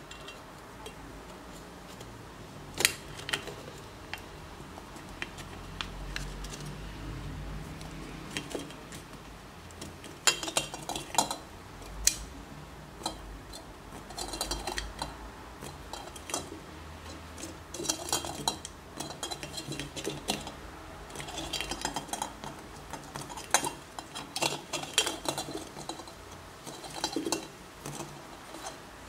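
Thin aluminium drink-can pieces handled and fitted together by hand: light metallic clinks, taps and scraping in scattered clusters, with one sharp click about three seconds in.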